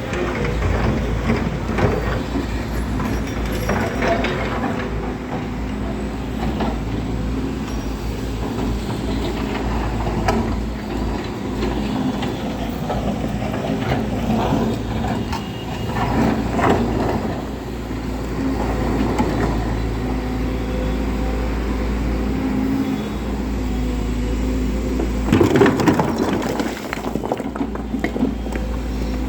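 Volvo excavator working: the engine runs steadily under scattered knocks and clatter, with a louder run of knocks near the end.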